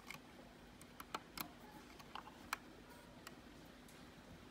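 Faint, irregular small clicks and taps of fingers handling a toy model Mercedes Sprinter ambulance, about seven in all.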